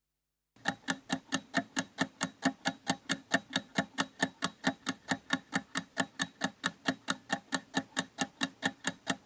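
Clock-like ticking sound effect, a steady run of about four to five sharp ticks a second that starts about half a second in: a countdown timer while the viewer picks an answer.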